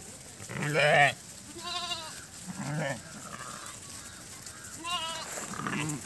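Sheep in a grazing flock bleating, about five separate calls, some with a quavering tremble. The loudest bleat comes about a second in; the others are softer.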